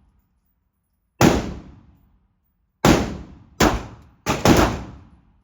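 Five gunshots at a shooting range, each cracking sharply and dying away slowly: single shots spaced a second or so apart, then two in quick succession near the end.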